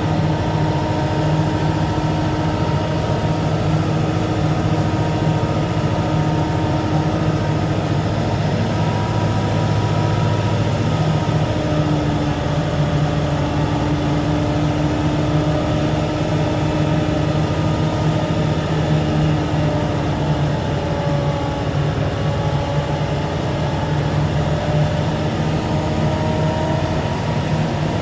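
Heavy diesel engine running steadily, its pitch drifting slightly a few times.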